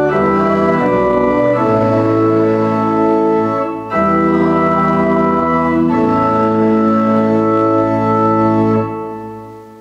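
Church organ playing slow sustained chords in two phrases, with a brief break about four seconds in. The last chord is released about nine seconds in and dies away in the church's echo.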